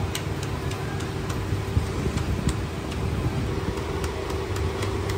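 A knife cutting a wedge of peeled fruit held in the hand, with quick, irregular sharp clicks as it slices and the pieces drop into a steel bowl, over a steady low hum.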